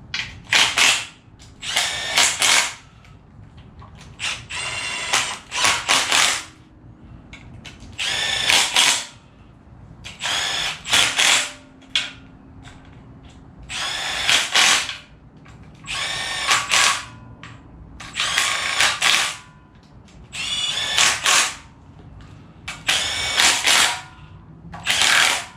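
A handheld power driver runs engine bolts down in short whining bursts, about a dozen of them, a second or two apart.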